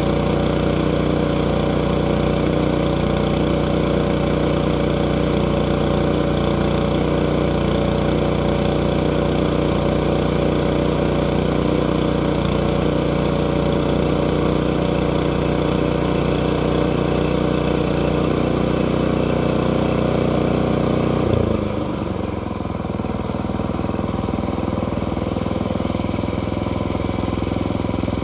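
Sawmill engine running steadily at speed, then throttling down to a lower, slightly quieter speed about three-quarters of the way through.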